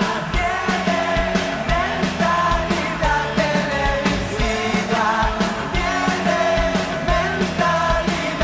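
Live rock band playing: a man sings lead over bass guitar, electric guitar and drums keeping a steady beat.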